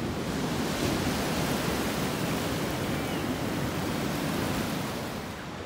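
Ocean surf washing onto a sandy beach: a steady rushing noise that eases slightly near the end.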